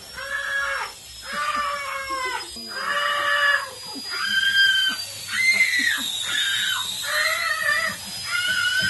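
A performer's voice wailing in a row of drawn-out cries, each about a second long with short breaks between them, about seven or eight in all.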